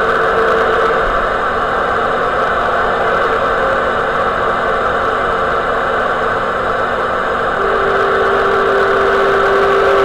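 CB radio receiver hissing with steady band static, with no one transmitting. A steady whistle tone sounds briefly at the start and comes back about three-quarters of the way through.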